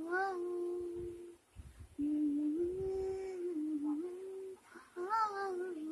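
A young woman humming a slow melody in long held notes, in three phrases with short breaks for breath about a second and a half in and again near the end.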